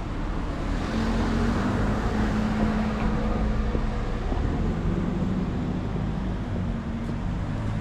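Street traffic: a motor vehicle's engine running close by, a steady low rumble with a hum, rising about a second in.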